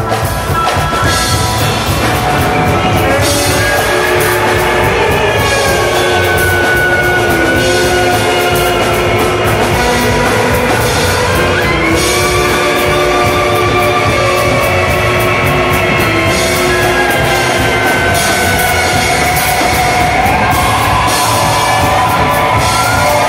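A live Americana roots band playing an instrumental passage: drum kit, guitars and upright bass under long held melody notes that slide in pitch, from clarinet, trumpet and lap steel guitar.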